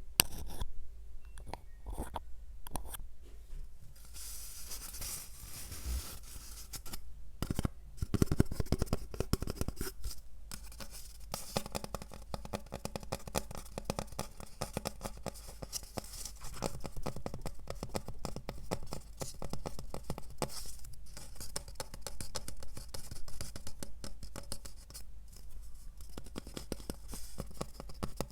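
Close-miked ASMR trigger sounds: a dense, continuous run of scratching and crackling handling noise, louder for a couple of seconds about eight seconds in.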